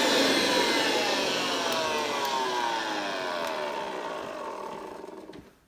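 Vacuum cleaner motor winding down after being switched off, its whine falling steadily in pitch and fading away over about five seconds.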